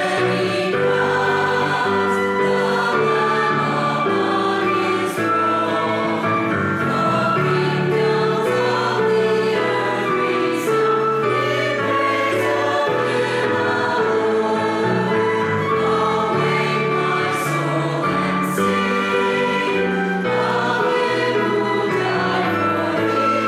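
Mixed church choir of men's and women's voices singing a hymn in parts, with notes held long and changing chords.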